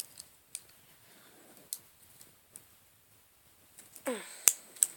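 Victorinox Swiss Army knife's can opener and bottle opener being folded shut: scattered light metal clicks, then a brief sound sliding down in pitch about four seconds in and a sharp snap right after it.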